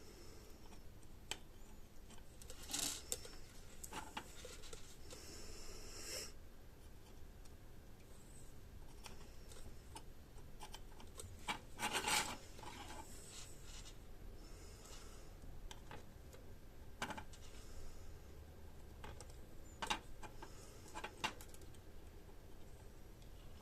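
Soldering a small circuit board: sparse small clicks, taps and brief scraping as the iron, solder and board are handled, with a short louder scrape about halfway through.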